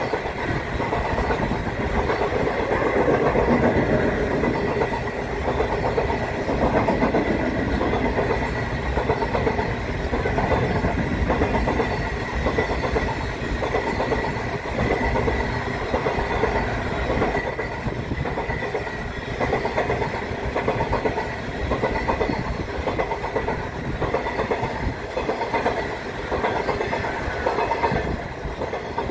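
The Ghan passenger train's stainless-steel carriages rolling past over a rail bridge, the wheels clacking in a steady repeating rhythm as car after car goes by.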